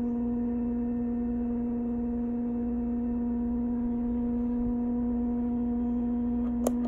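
Steady electrical hum from an idling vinyl cutter, its carriage held over the crop mark: one even tone with a few overtones above it. Two sharp clicks come close together near the end.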